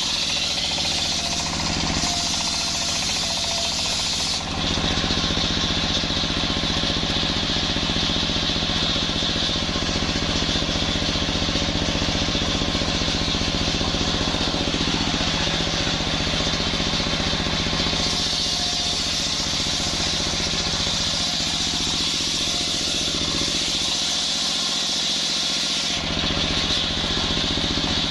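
Engine-driven sawbench circular saw running steadily while its blade rips a coconut-palm log lengthwise into boards: the engine's even hum under the hiss of the blade cutting the wood.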